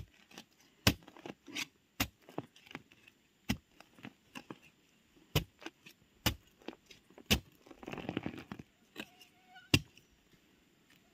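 Digging in soil by hand: a narrow metal digging bar knocks sharply into the earth at irregular intervals, and hands scrape and crumble loose soil and dry leaves, with a longer burst of scraping about eight seconds in.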